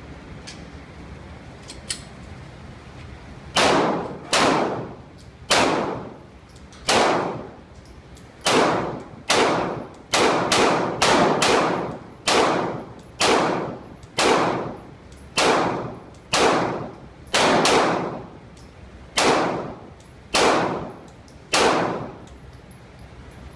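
A Glock pistol firing about eighteen shots one at a time at an uneven pace, quickest around the middle of the string, each shot ringing out briefly after the report.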